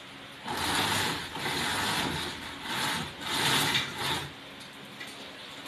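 Zebra blind being lowered with its bead chain, the chain rattling through the clutch in about four pulls lasting a few seconds.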